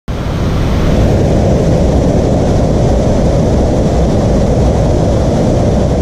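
Waterfall plunging into a pool: a loud, steady rush of falling water.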